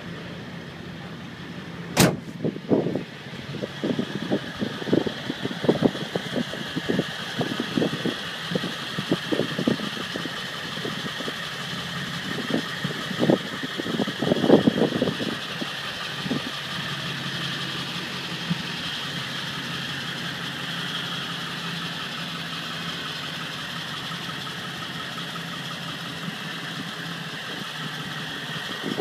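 Ford 7.3-litre Power Stroke turbo-diesel V8 idling steadily. A sharp click comes about two seconds in, followed by a run of short irregular knocks over the next fifteen seconds.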